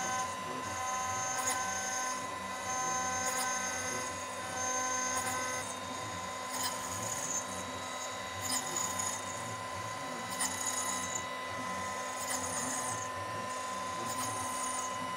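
CNC router spindle running a long, slender 55-degree helix finishing end mill along the teeth of a steel gear: a steady whine, with a sharper high-pitched cutting sound that comes and goes every second or two as the cutter moves in and out of the tooth gaps. The high helix keeps the long tool cutting cleanly without chatter.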